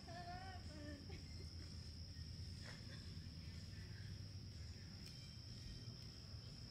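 Faint, steady chorus of crickets: one unbroken high-pitched trill, over a low background rumble.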